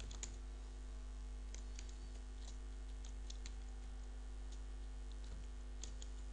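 Sparse, irregular clicks from a computer keyboard and mouse as lines of code are selected, copied and pasted, over a steady low electrical hum.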